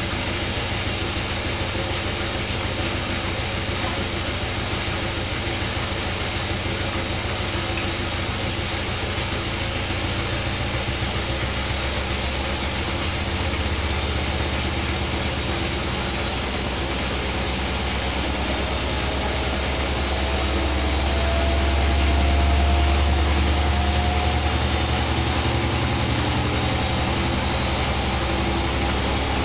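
Candy GrandO Plus washing machine running steadily with its drum spinning, a constant low hum with a faint motor whine that rises slowly in pitch about two-thirds of the way through as the spin speeds up.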